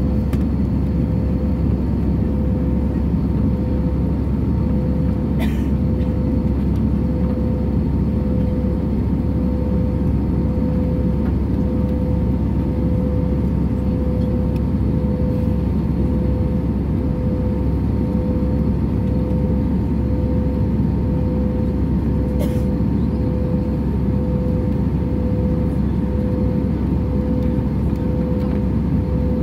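Airliner cabin noise from a passenger seat: a steady low rumble with a constant tone above it. Two faint clicks, about five seconds in and again near the end.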